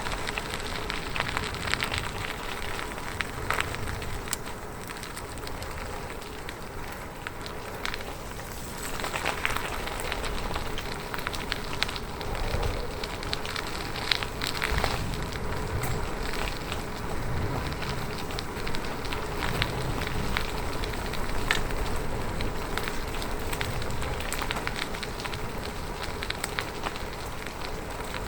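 Bicycle riding: the tyres roll steadily along the road with many small clicks and ticks, and there is a low rumble underneath.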